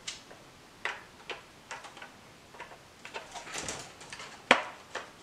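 Sharp plastic clicks and taps as wheels are pressed onto the underside of a Playmobil Ecto-1 toy car's plastic chassis, with a short scraping rustle about three and a half seconds in and the loudest snap soon after.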